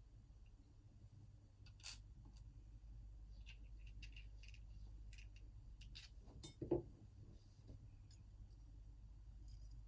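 Scattered small metallic clicks and clinks as an Assa Twin 6000 lock is taken apart and its driver pins are removed, a few sharper taps about two seconds in and again around six to seven seconds in.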